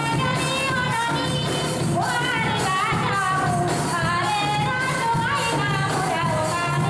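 Twarab (Comorian taarab) music: a singer's melody sliding between notes over a steady, even dance beat.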